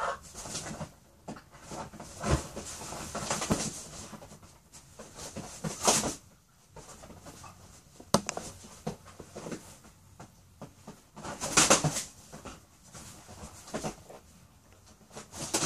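A dog and a rooster scuffling on a leather couch: irregular bursts of scrabbling and rustling, loudest about six seconds in and again near twelve seconds, with a sharp click around eight seconds.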